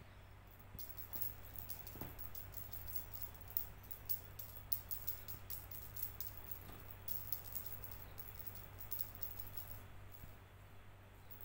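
A feather wand cat toy being waved and flicked: a quick, irregular, faint rustling and rattling from about a second in that stops about ten seconds in.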